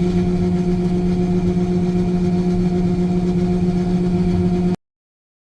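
Combine harvester running with a steady, even hum and low rumble, holding one constant pitch; the sound cuts off abruptly just before the end.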